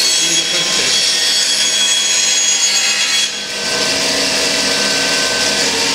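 Bandsaw running with its blade cutting through a piece of wood: a steady sawing hiss over the machine's steady whine, dipping briefly a little past halfway.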